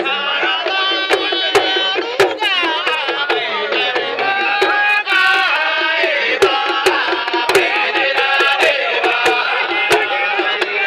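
Male praise singer chanting through a microphone over Hausa talking drums (kalangu) beaten with curved sticks in a fast, busy rhythm.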